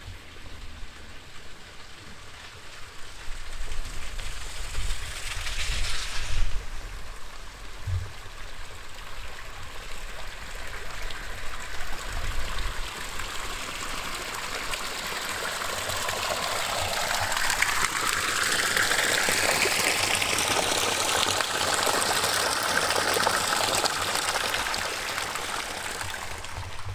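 Flowing water of a stream, rushing steadily, growing louder from about halfway through and then holding.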